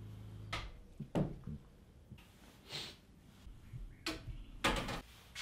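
Handling noise from fishing gear being picked up and set down on a bass boat's carpeted deck: a scattering of short clicks, knocks and rustles, the loudest a couple of knocks about four to five seconds in.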